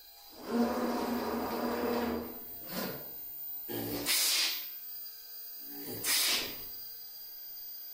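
CNC router at work: a pitched machine whine for about a second and a half as the spindle moves across, then short hissing cutting bursts about two seconds apart as the spindle bores into the bassoon's body tube.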